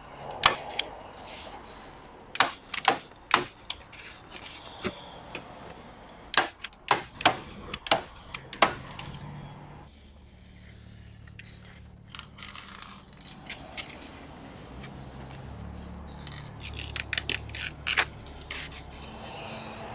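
Hand staple gun (tacker) snapping staples into roofing underlay membrane over wooden battens: about a dozen sharp clicks over the first nine seconds, then a quieter stretch with a faint low hum, and a few more clicks near the end.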